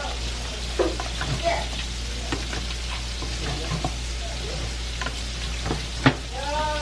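Wooden spoon stirring green beans in a metal pot, with scattered scrapes and knocks of the spoon against the pot and a sharp knock about six seconds in. A steady sizzling hiss of the pot cooking runs underneath.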